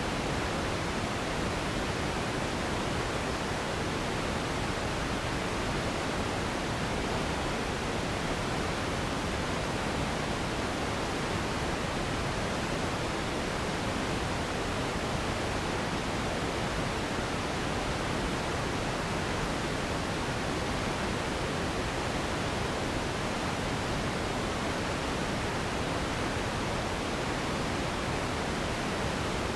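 Steady generated noise for sleep: an even, unchanging rushing hiss with no tones or separate sounds in it.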